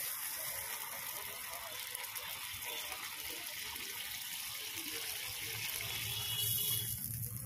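Water poured from a bowl into hot oily masala in an iron kadai, sizzling steadily.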